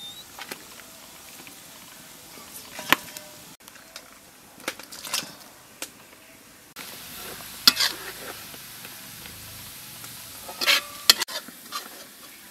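Scattered clinks and scrapes of a wire strainer and utensils against a stainless-steel pot and bowl while boiled fish is handled, over a steady hiss. The sharpest clinks come about three seconds in, near the middle and shortly before the end.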